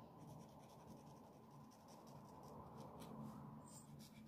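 Faint, soft scratching strokes of a brush-tip felt pen colouring on paper.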